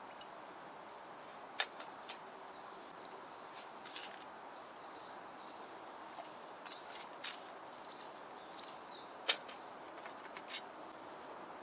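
Quiet forest ambience with a few faint high bird chirps, broken by sharp clicks and light knocks of a drink can, plastic bottle and cup being handled on a low camp table: a loud click about a second and a half in, and a cluster of clicks from about nine to ten and a half seconds in.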